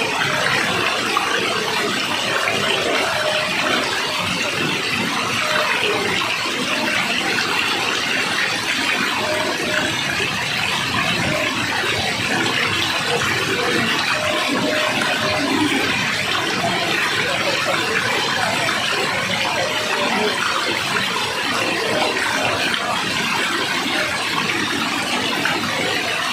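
Steady, unbroken rush of falling water, like a waterfall.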